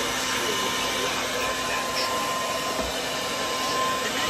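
Handheld hair dryer running steadily as it blow-dries hair: a constant rush of air with a steady whine from its motor.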